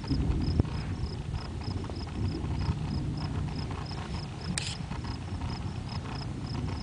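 Night insects chirping in a steady rhythm, about three high chirps a second, over a low rumble. A single sharp tick comes about four and a half seconds in.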